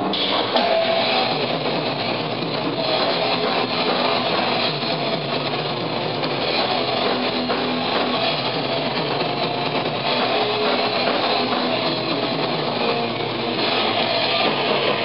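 Thrash metal band playing live: distorted electric guitars and drums, loud and dense throughout.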